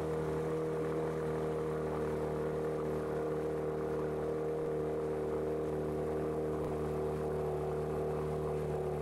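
A motorboat's engine running steadily at an even, moderate speed, with a constant hum and no change in pitch.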